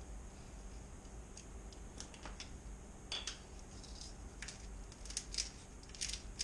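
Faint, crisp intermittent clicking of a hand-turned spice grinder grinding sea salt and black pepper, the clicks coming thicker toward the end, over a low steady hum.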